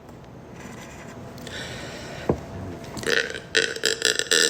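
A woman burps loudly in one long, drawn-out burp that starts about three seconds in, preceded by a single sharp click.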